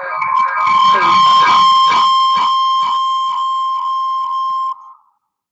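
Audio feedback on a webinar call: a loud, steady high-pitched tone over smeared, echoing repeats of speech, cutting off suddenly just before the end. It is a sound-system fault that the presenters then fix.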